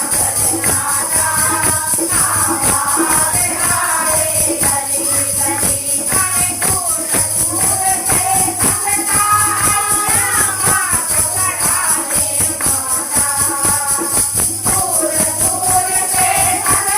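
A Hindi devotional bhajan sung by a kirtan group, with tambourine jingles and a steady rhythmic beat.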